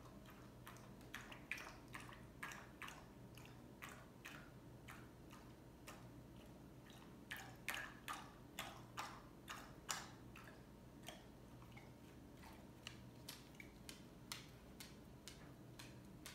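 Dog lapping water from a pet water bowl: a run of quick, irregular faint wet clicks, loudest about halfway through.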